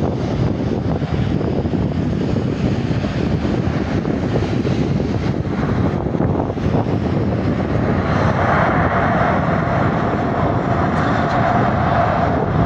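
Jet airliner engines running with a steady rumble. About eight seconds in, a louder rushing sound with a steady whine joins and holds.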